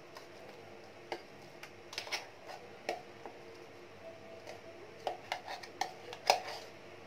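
A metal spoon scraping and knocking inside a stainless-steel mixer-grinder jar as thick chickpea paste is scooped out into a glass bowl. The result is a string of irregular light clinks and taps, the sharpest one near the end.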